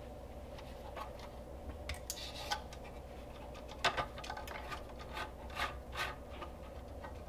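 Faint handling sounds of fingers rubbing and tugging at the small fan motor's wiring and plug on the back of a Porsche 993 climate control unit. Scattered light plastic clicks come through, a few sharper ones in the middle.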